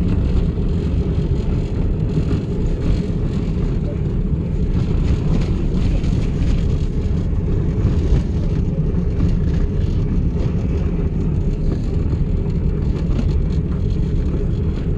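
Steady low rumble of a car driving along a road, heard from inside the cabin: engine and road noise.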